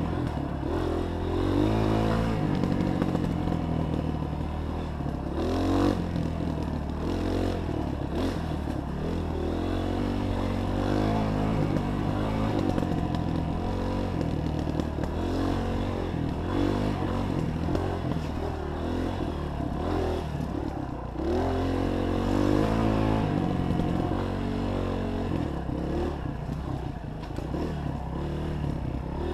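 Honda 230 dirt bike's single-cylinder four-stroke engine running under load on a trail ride, its pitch rising and falling again and again as the throttle opens and closes.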